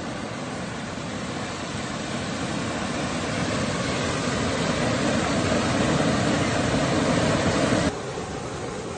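Muddy floodwater rushing over a low weir: a steady, even rush that grows louder over several seconds, then drops suddenly to a quieter level near the end.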